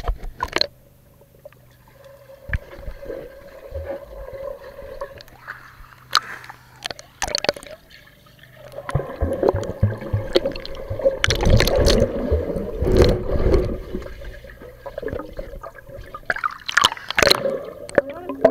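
Swimming-pool water gurgling and sloshing around a camera held underwater, with scattered knocks and bubbling; the sound grows louder and busier for several seconds in the middle.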